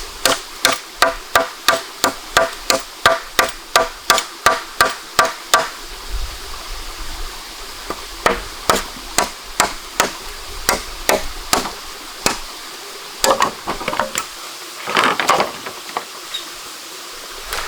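Repeated sharp striking or chopping blows, about three a second and evenly paced for the first six seconds, then slower and irregular, with a few longer scraping sounds near the end.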